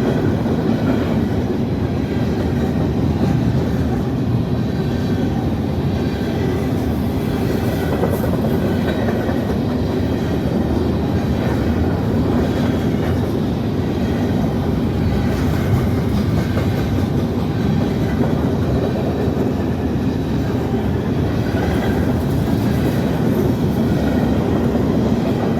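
CSX freight train's cars rolling past, a steady rumble with wheels clattering over the rail joints.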